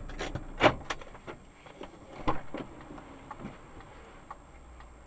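A few sharp clicks and knocks inside a stationary car's cabin over a low steady hum: the loudest just under a second in, another a little over two seconds in, with fainter ticks between.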